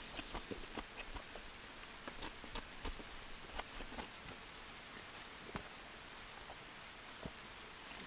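Rain falling, a steady soft hiss with scattered individual drops ticking at irregular intervals.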